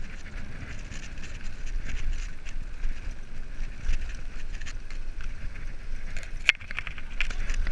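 Mountain bike rolling fast down a dirt forest track: tyre rumble and the rattle of the bike over the rough ground, with wind on the camera microphone. One sharp click about six and a half seconds in.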